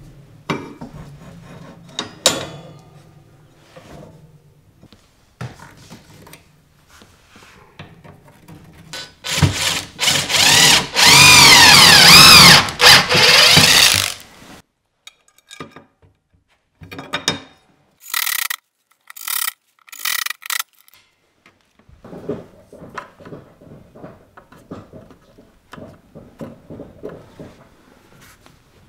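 A few knocks, then a cordless drill whirring in several loud bursts as a thin bit bores into a wooden door frame, near the middle. Several shorter whirring bursts follow, then a softer rapid rattling.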